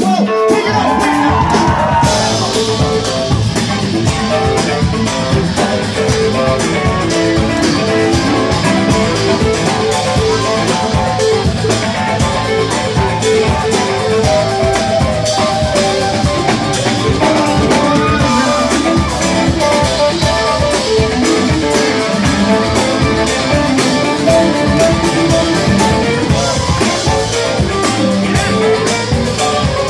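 Live band playing with drums and electric guitar under a keyboard solo on a Nord Electro 4 stage keyboard.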